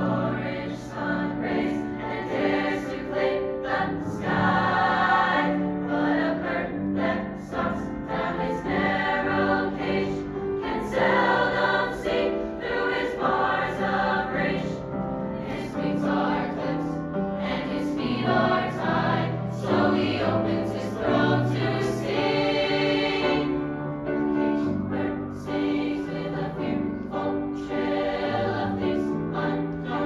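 High school concert choir singing in four parts (SATB), holding sustained chords at a steady level.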